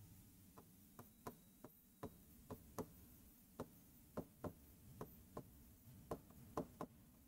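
Faint, irregular taps of a marker pen on a whiteboard while words are written, about two a second.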